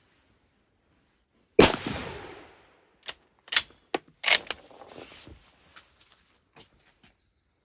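Lee Enfield No. 5 jungle carbine firing .303 British: one loud rifle shot about a second and a half in, its report echoing for about a second. Several sharp clicks follow, then a second, weaker report with a shorter tail, then more scattered clicks.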